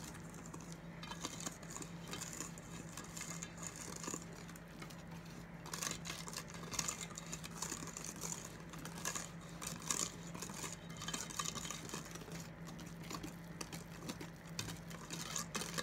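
Wire whisk beating chocolate cake batter in a stainless steel bowl: quick, uneven scraping and ticking of the wires against the metal side through the wet batter.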